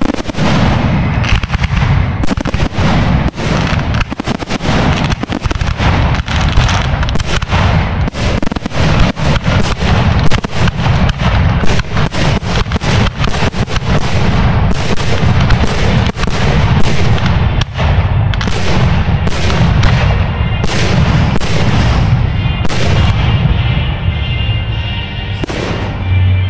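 Fireworks display going off in a dense barrage: many sharp bangs in quick succession, overlapping a heavy low rumble, with music underneath.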